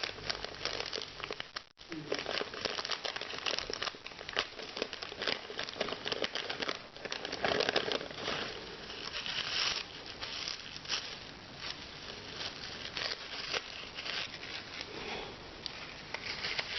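Packaging crinkling and rustling in irregular bursts as it is handled and unwrapped by hand, with a brief drop-out about two seconds in.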